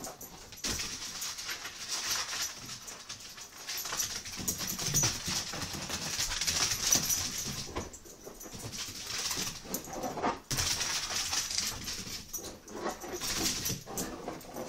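Beagle puppy tearing around the room, its claws skittering and scrabbling on a hardwood floor and a cushioned ottoman, with a short lull about eight seconds in.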